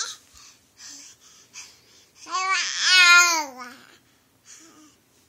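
Baby babbling: a few short soft sounds, then about two seconds in one loud, drawn-out wavering vocal sound that drops in pitch at its end, and a short soft one near the end.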